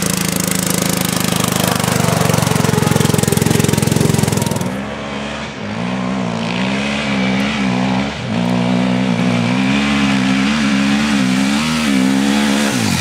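A riding lawn mower's engine running hard and steady as it climbs a grass hill; about five seconds in, this gives way abruptly to a motocross sidecar outfit's engine revving, its pitch rising and falling with the throttle as it climbs.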